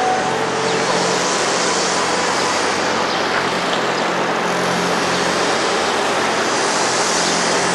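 Steady street traffic noise with a low, even hum underneath.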